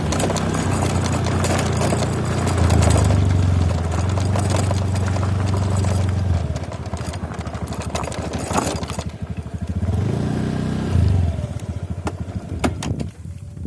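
Motorcycle engine running steadily, then easing off about six seconds in with a rattly clatter, rising briefly once more near the eleven-second mark before dying away near the end.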